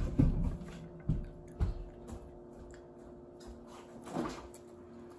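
A few dull thumps and knocks as a table and chair are bumped while someone gets up: the loudest right at the start, then two short knocks about a second and a second and a half in, over a faint steady hum.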